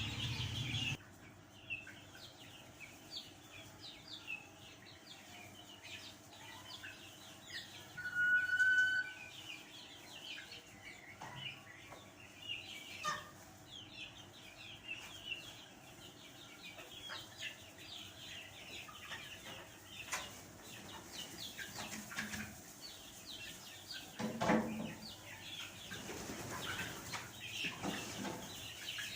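A flock of chickens keeps up a constant chatter of short, high peeps and clucks. About eight seconds in there is a brief, louder high-pitched squeak, and near the end a short scuffing noise.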